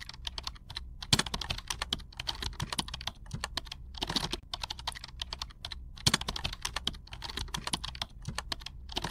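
Fast typing on a computer keyboard: a quick, steady stream of key clicks with a few short pauses.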